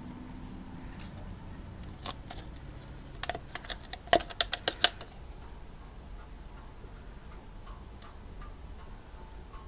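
A red plastic cup being picked up and handled in a gloved hand, giving a quick run of sharp plastic clicks and crackles about two to five seconds in.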